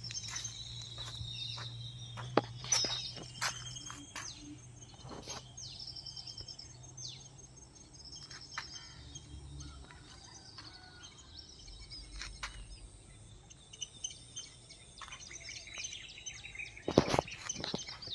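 Small birds chirping and calling in short, repeated high notes, with scattered sharp clicks. A low steady hum runs under roughly the first half, and there is a cluster of louder clicks near the end.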